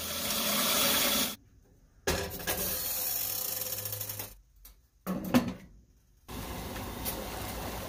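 Tap water running into a metal cooking pot, stopping abruptly a little over a second in. About five seconds in there is a brief clatter as a glass lid is set on the pot, and then a steady low hiss.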